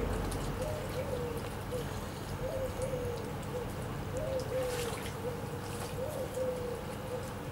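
Shallow river water trickling and rippling over stones, with a steady hum that wavers slightly in pitch and a short burst of noise about five seconds in.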